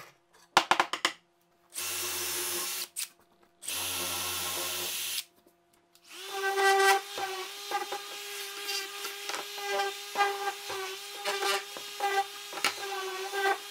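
A few sharp knocks, then a drill press running in two short stretches, each cut off abruptly. From about six seconds in, a random orbital sander runs with a steady hum, wavering in loudness as it works along the edge of a plywood piece.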